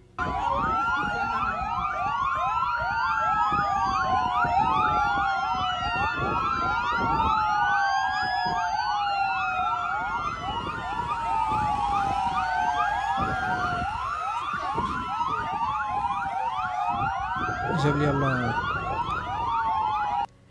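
Many police and emergency vehicle sirens wailing at once, their slow rising and falling tones overlapping out of step, over a low rumble of traffic.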